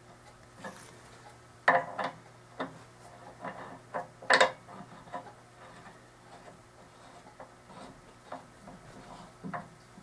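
A 9/16-inch steel pedal axle being threaded by hand into a bike's crank arm: scattered light metal clicks and knocks as the parts are handled and turned, the loudest about four seconds in.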